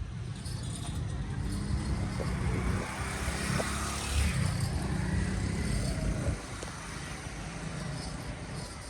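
A motor vehicle's engine running with a low rumble that swells to a peak about four seconds in and drops away a little after six seconds, like a vehicle passing close by.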